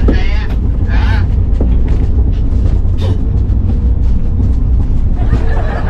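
Steady low rumble of a van driving, heard from inside its cabin, with short snatches of voices near the start.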